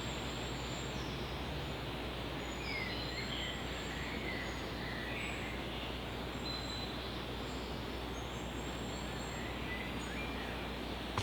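Outdoor woodland ambience: a steady background hiss, with small birds chirping and whistling faintly at intervals.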